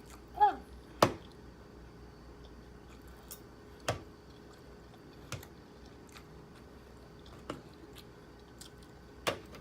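Close-miked chewing and mouth sounds from eating fried pork lumpia: a string of sharp, separate crunches and clicks, the loudest two in the first second, then more every second or two.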